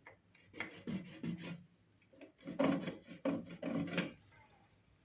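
Wood being worked by hand with an abrasive tool, rasping in short back-and-forth strokes: a few strokes, a brief pause, then a second run of four or five.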